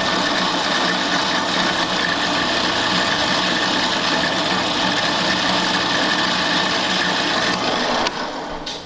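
Drill press running while a 13B rotary engine side seal is fed against the spinning bit: a steady motor hum under a dense grinding hiss as metal is taken off the seal's end. The noise drops off sharply about eight seconds in as the cut ends.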